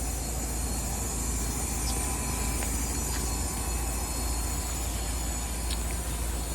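Trane XR14 outdoor condensing unit running, with a steady hum and fan airflow noise. A few brief, faint high squeaks come through, about two, three and six seconds in.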